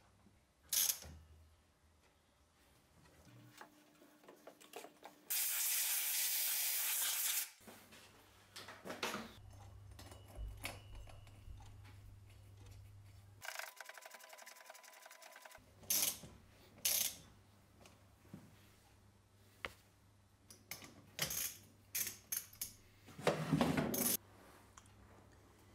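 Workshop handling of an engine cylinder head: scattered clicks and knocks of metal parts and tools, a steady hiss lasting about two seconds, and a mechanical buzz lasting about two seconds midway.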